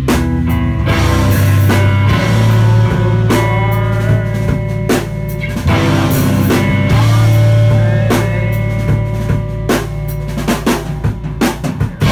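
Live rock band playing loud: distorted electric guitar over held low notes, with a drum kit hitting steadily throughout.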